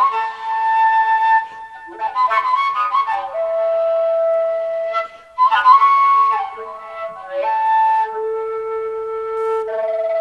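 Dark folk ambient music led by a solo wind-instrument melody, long held notes alternating with quick runs of notes.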